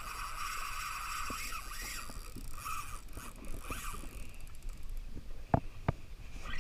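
Fishing reel whirring as line comes in against a hooked fish, fading after about four seconds, followed by two sharp knocks near the end.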